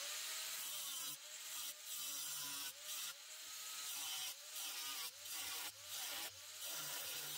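Angle grinder with a cut-off wheel cutting through a steel piece: a steady gritty grinding whose motor pitch sags and recovers, and whose level dips every half second or so as the wheel bites and eases.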